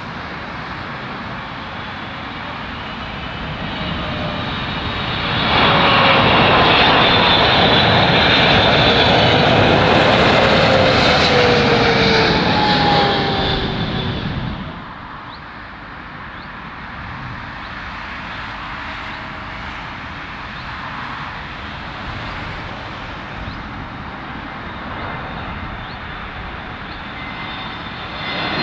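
Boeing 777 airliner's jet engines passing low overhead on approach to land. The noise swells about five seconds in, with a falling whine as it goes over, then drops away suddenly. After that comes a quieter, steady jet rumble from another approaching airliner.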